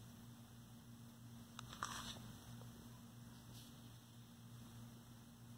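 Near silence: a faint steady electrical hum, with a brief click and soft rustle about two seconds in.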